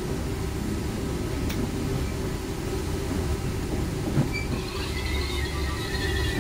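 Passenger train rolling into a station, heard from inside the coach: a steady low rumble of the wheels on the track, with one short knock about four seconds in. From about four and a half seconds a faint high-pitched squeal joins in as the train slows for the station.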